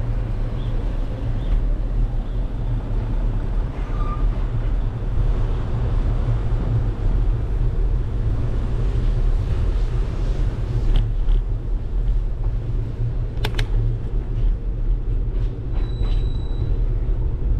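Steady low rumble of wind buffeting and road noise on the microphone of a camera riding on a moving bicycle, with a single sharp click about two-thirds of the way through.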